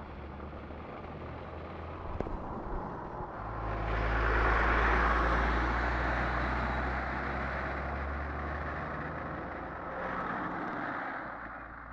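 Lawnmower running with a steady hum, growing louder about four seconds in and easing off again near the end as it comes closer and moves away.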